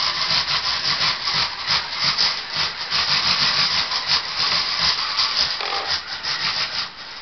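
Rover 5 robot chassis on Vex mecanum wheels driving on linoleum: a rapid, rattling scrub from the wheel rollers and drive motors. The robot is attempting a rotation, which is underpowered and goes badly. The noise drops off near the end as it stops.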